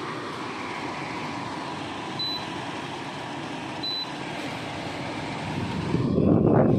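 Electric air conditioner fan running with a steady whoosh of air and a faint hum. Two short high beeps come about two and four seconds in, and a louder rumbling swell rises near the end.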